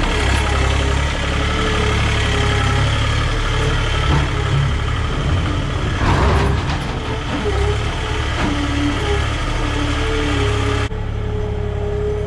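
Diesel farm machinery engine running steadily with a low rumble, its pitch wavering slightly, and a brief louder noise about six seconds in.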